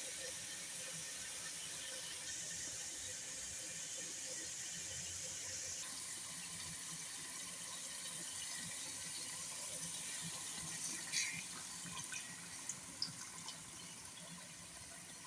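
Water running steadily from a kitchen tap, with a few light clicks and knocks near the end.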